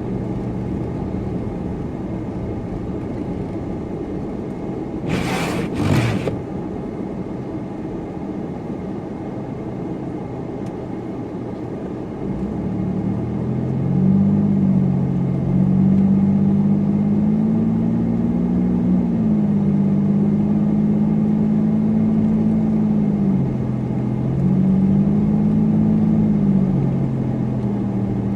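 Car engine and road rumble while driving. About five seconds in there is a brief loud whoosh. From about twelve seconds the engine note climbs under acceleration, holds steady, dips briefly, then climbs again.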